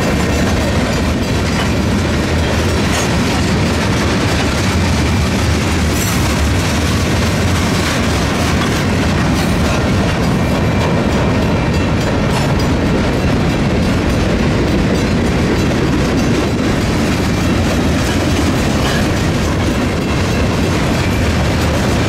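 Freight train cars rolling past close by: a steady, loud rumble of steel wheels on the rails, with scattered clicks and clanks as the wheels pass over the rail joints.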